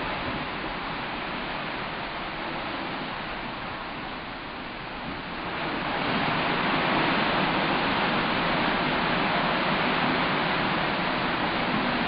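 Seawater rushing and churning into white foam along the side of a moving cruise ship: a steady rushing hiss that gets louder about six seconds in.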